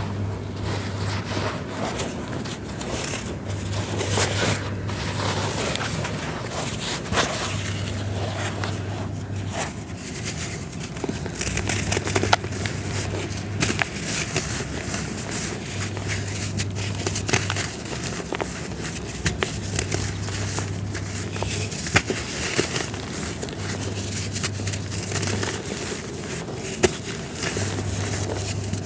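A dry, brittle filter material, the 'Red devil CC filter', being crumbled and crushed: a continuous gritty crackle with scattered sharp snaps.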